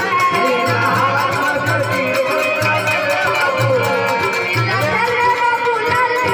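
Traditional Indian folk music accompanying a dance: a wavering melody over a steady, repeating low drum beat.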